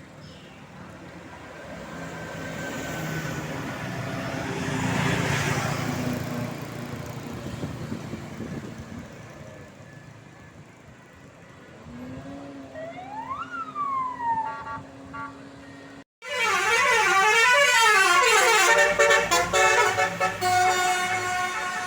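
A bus passes with a swelling and fading rush of engine and road noise. Then its Basuri 'telolet' musical air horn sounds, first a single tone gliding up and back down, then, after a sudden break, a loud warbling melody of several tones sweeping up and down in pitch.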